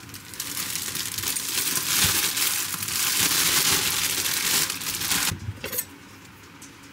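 Crinkling and rustling of something being crumpled or handled, dense and busy for about five seconds, then dropping to faint rubbing with a few light clicks.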